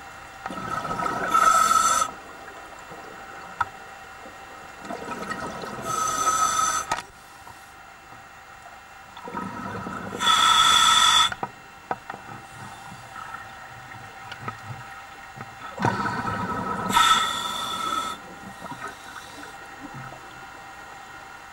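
Scuba diver breathing through a regulator underwater, heard through the camera housing: four breaths about five seconds apart, each building to a louder rush of air and exhaust bubbles.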